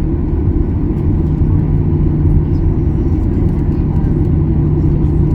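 Cabin noise inside a Boeing 737-800 taxiing on the ground: a steady low rumble from the engines and airflow, with a constant hum.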